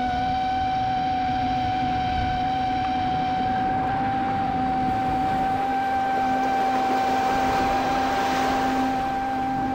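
FPV drone motors whining at a near-steady pitch over a constant rushing noise. The rushing swells briefly about eight seconds in.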